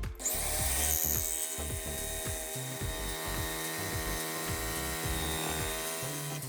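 An electric power tool running steadily on wood for about six seconds, starting and stopping abruptly, over background music.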